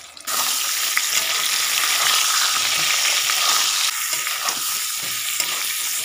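Parboiled potato chunks sizzling loudly in hot oil in a kadai while being stirred with a metal spatula. The sizzle starts abruptly just after the start and eases a little about four seconds in.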